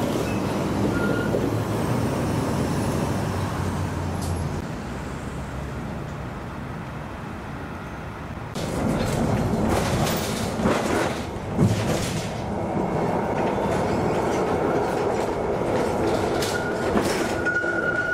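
A tram running on street track with a steady low rumble that eases off for a few seconds. At about the middle it grows suddenly louder, with clatter and several sharp knocks from the wheels and track. Near the end a high, steady wheel squeal begins.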